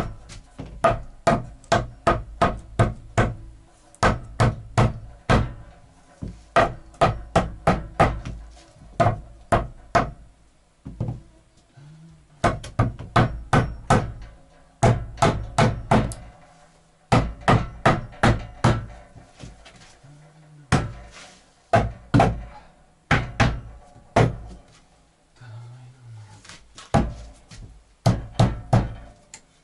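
Hammering on a log cabin's wooden door frame: runs of sharp strikes, about three a second, each leaving a brief ring, with short pauses between the runs.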